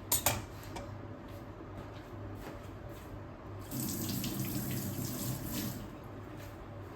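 A sharp clink right at the start, then water running from a tap for about two seconds in the middle.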